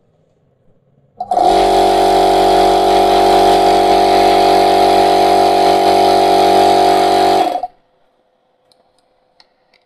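A 1.5 hp air compressor's single-phase induction motor and pump start about a second in, run with a steady hum for about six seconds, then are switched off and stop abruptly. The motor is drawing a normal current of about 4.5 to 5 amps, now that the wires shorted to the body and a crossed running coil that made it pull about 15 amps have been fixed.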